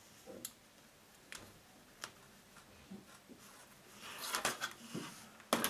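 Hands handling a clear acrylic ruler and quilted fabric on a cutting mat: a few light clicks, then the fabric rustling as it is smoothed and moved, loudest near the end.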